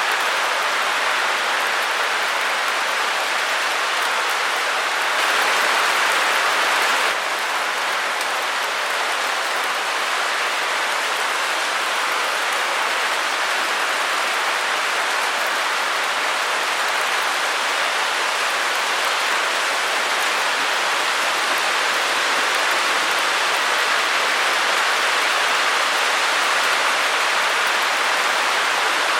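Steady white-noise hiss, an even wash with no pattern or tone, sitting mostly in the middle and upper range with little bass. It turns a little louder for about two seconds, about five seconds in.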